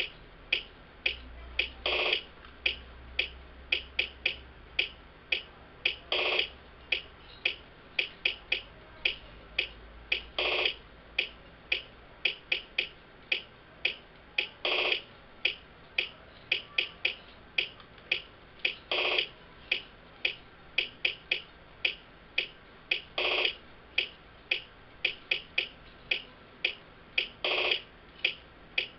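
Dance music with a steady clicking beat, about three clicks a second, and a longer, louder pitched hit about every four seconds.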